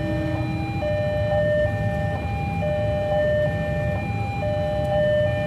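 Railway level-crossing warning alarm sounding, an electronic tone alternating steadily between two pitches, which signals that the crossing is closed for an approaching train. Under it runs a steady low rumble of road traffic.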